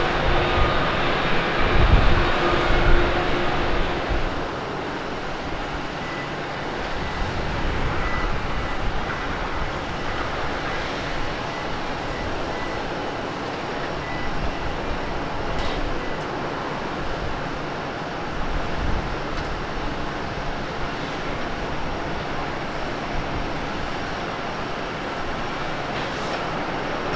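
Boeing 787 airliner jet engines at takeoff thrust: a loud low rumble that eases after about four seconds into a steadier, quieter jet noise.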